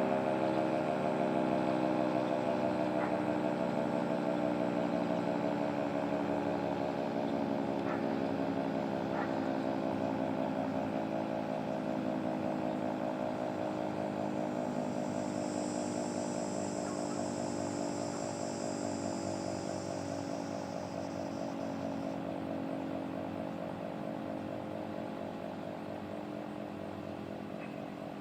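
Federal Signal 3T22 three-tone electromechanical outdoor warning siren winding down at the end of its test. Its chord of tones slowly sinks in pitch and fades as the rotor coasts to a stop.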